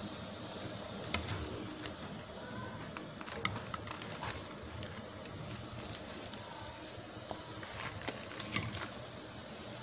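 Pot of hot water with napa cabbage blanching in it: a low steady simmer with a few scattered sharp clicks and ticks.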